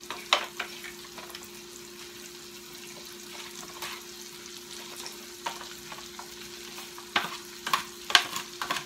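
Bell peppers and onions sizzling in butter and oil in a skillet as flaked canned salmon is spooned in. There are scattered clinks and scrapes of a spoon on a foil pan, several close together near the end, over a steady low hum.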